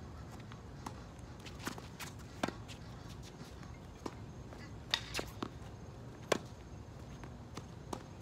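Tennis rally: sharp knocks of a ball struck by rackets and bouncing on a wet hard court, every second or so, with the players' footsteps.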